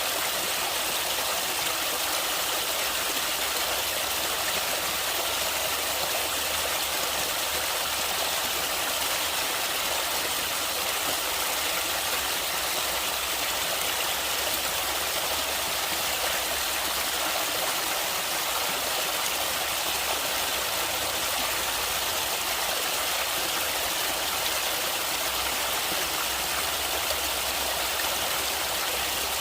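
Running water of a stream, flowing in a steady, even wash of hiss-like noise with no breaks or changes.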